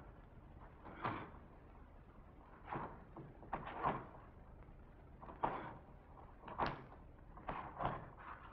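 Bare feet stepping on a stage floor during a slow walk: faint, short thuds at uneven intervals, about eight in all, some close together in pairs.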